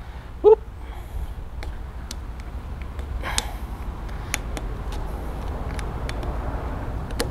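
Scattered light clicks and scrapes of a metal waiter's-friend corkscrew levering at a stuck plastic bar-end plug in a BMX handlebar, over a low steady rumble.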